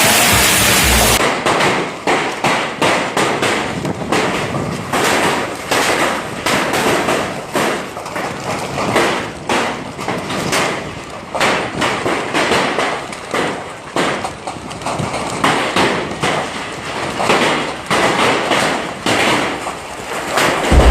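Hailstones pelting down in a dense, irregular clatter of sharp hits that rise and fall in strength. Loud music cuts off abruptly about a second in, just before the clatter.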